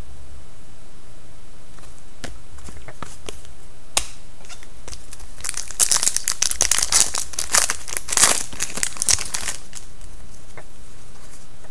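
A trading-card pack's wrapper being handled, then torn open and crinkled in a dense run of crackling from about five and a half to nine and a half seconds in, with a few light clicks before it.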